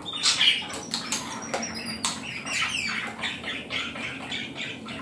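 A person eating a soft dessert off a spoon: wet chewing and lip-smacking with many small clicks, and a few short high squeaks.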